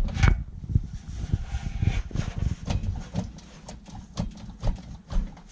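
Irregular knocking and clunking from the pulled-out Rheem blower assembly being handled, its motor's bearings worn with too much play.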